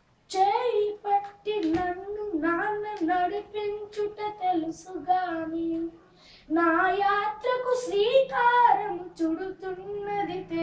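A boy singing a Telugu ghazal solo, holding long notes that waver and bend in pitch. The singing breaks off briefly about six seconds in, then goes on.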